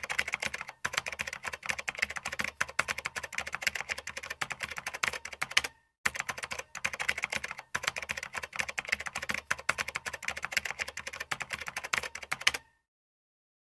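Typing sound effect: a fast, continuous run of key clicks, with a brief pause about six seconds in, stopping about a second before the end.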